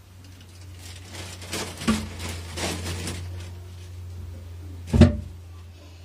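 Rustling and handling noises, with a sharp knock about two seconds in and a louder thump about five seconds in, over a steady low hum.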